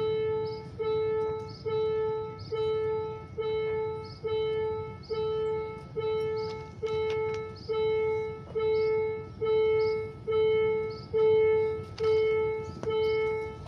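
Railway level-crossing warning bell ringing with the barriers down: one ringing tone struck a little more than once a second, each stroke fading before the next, over a low steady rumble.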